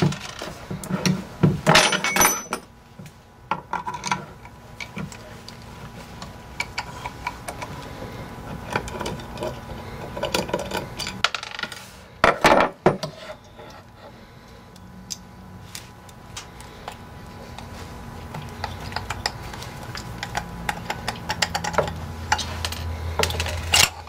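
Small metal parts of an old Foredom Series H flex-shaft motor clicking and clinking under hand: acorn nuts and washers are handled and the motor housing is worked apart to expose the armature. There are louder clatters about two seconds in and again about twelve seconds in.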